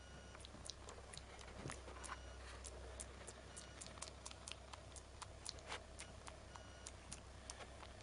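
Faint, irregular little clicks and ticks, a few a second, from a baby monkey grooming a cat, its fingers and mouth working through the fur. A low steady hum runs underneath.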